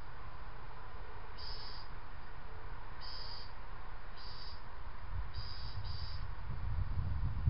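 A cricket chirping: short, high-pitched chirps, each about a third of a second long, repeating every second or so, with two coming close together near the end. A low rumble grows in the last couple of seconds.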